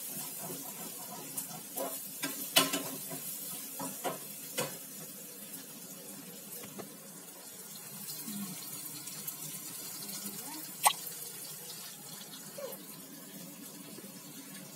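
Spatula stirring and scraping in a wok while shredded chicken and spice paste sauté, over a steady sizzle. There are scattered clicks and two louder knocks of the spatula on the pan, one about two and a half seconds in and one about eleven seconds in.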